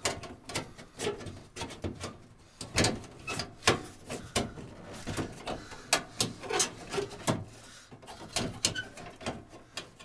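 Irregular clicks, knocks and scrapes of a door lock actuator and its bracket bumping against the sheet-metal inner panel of a van's sliding door as it is worked into position, its welded-on bolts catching on the way in.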